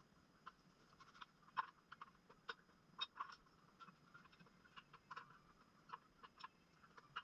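Faint, irregular light clicks and ticks, a few a second, over a low background.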